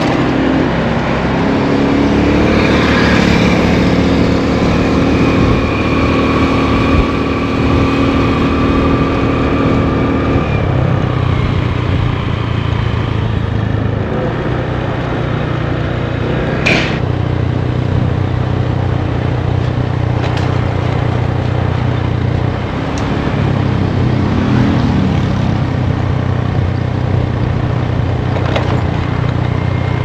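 Small motor scooter engine running steadily while riding, its pitch shifting a few times as the speed changes. A single sharp click sounds partway through.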